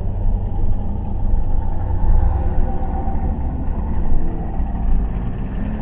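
Dodge Challenger Widebody's Hemi V8 running steadily on the move, a deep even drone mixed with road noise, heard from inside the cabin.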